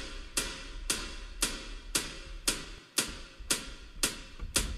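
Quiet opening of a song: a sharp cymbal-like tick repeating evenly about twice a second, before the full band comes in.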